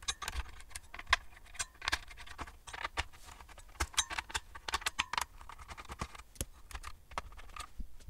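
Irregular small metallic clicks and ticks of a precision screwdriver working the CPU heatsink screws loose on a server motherboard, with light handling of the board.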